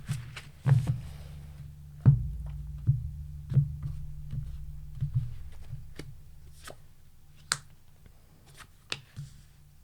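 Scattered light taps and clicks, about a dozen at uneven intervals, over a low steady hum.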